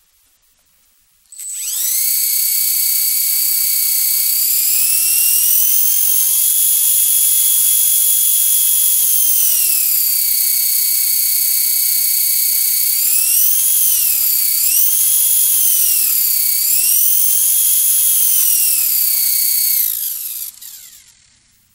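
Caliber 120 micro RC helicopter with a brushless main motor spinning up on the bench: a high-pitched motor whine with rotor hum starts about a second in and rises. It holds steady, swoops up and down several times as the throttle is worked, then winds down and stops near the end.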